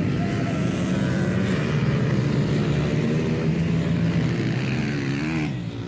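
Small pit bike engines racing, running hard at high revs, their pitch rising and falling as the riders throttle on and off through the course.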